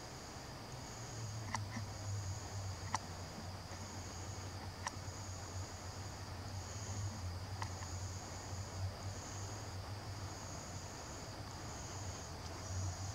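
Night insects chirping in a pulsing high-pitched rhythm, about one pulse a second over a steady high trill. A low steady hum runs underneath, with a few faint clicks.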